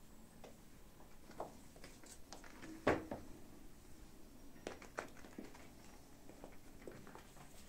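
Kittens playing with a small toy ball on the floor: scattered light knocks, taps and scuffs of paws and toy, with one louder thump about three seconds in.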